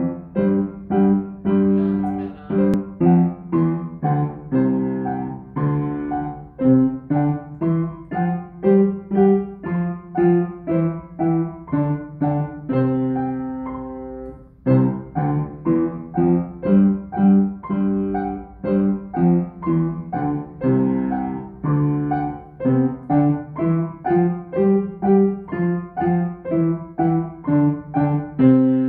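Schimmel upright piano played with both hands: a simple tune of separate, evenly paced notes at about two a second. There is a short break about halfway, and it ends on a held note.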